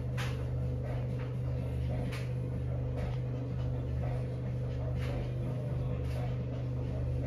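A steady low hum, like a machine or appliance running, with a few faint short clicks and knocks over it.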